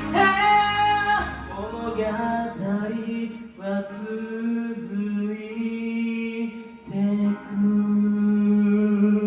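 Music: the closing bars of a pop song's backing track, sustained notes changing every second or two.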